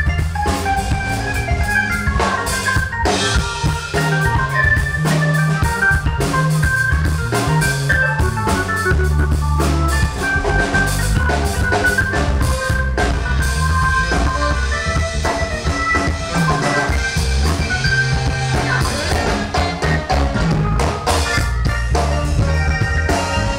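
Band music: a drum kit keeping a beat under an organ-toned electric keyboard.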